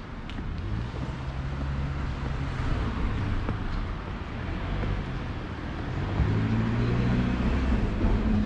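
Road traffic passing close by: a low engine hum swells twice, with a higher hum added near the end.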